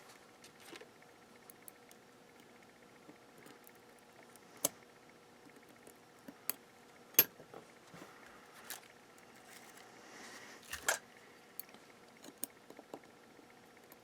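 Scattered light clicks and taps of small tools and parts being handled on a workbench, the sharpest about seven seconds in and again near eleven seconds.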